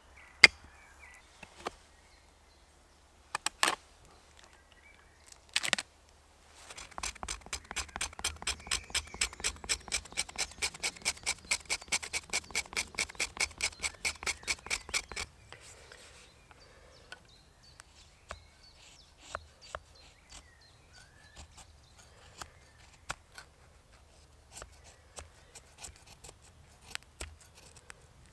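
Knife blade scraping a piece of birch bark in fast, even strokes, about five a second for some eight seconds, working up tinder for a fire. A few sharp knocks come before it, and scattered light clicks and cuts follow.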